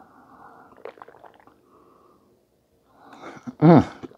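A woman drinking iced tea from a glass, with faint swallowing noise and a few light clicks, then a loud, satisfied 'ahh' falling in pitch about three and a half seconds in.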